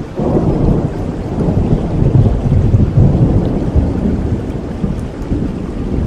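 Thunder rumbling over steady rain, the rumble building just after the start and strongest about two to three seconds in.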